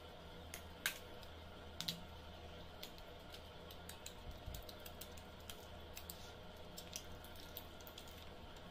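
Clear slime being poked and squeezed in a small plastic cup, making irregular faint sticky clicks and pops, with one sharper click about a second in and a pair of clicks just before two seconds.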